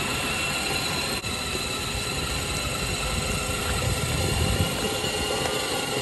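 Children's battery-powered ride-on 4x4 toy truck driving: a steady whine from its electric motors and gearboxes over a low rumble of the wheels.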